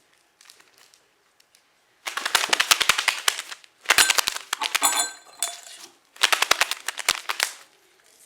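Foley glove squeezed tight and shaken hard from side to side, giving a rapid flapping flutter that imitates a bird's wings as it takes off. It comes in three bursts of about a second and a half each.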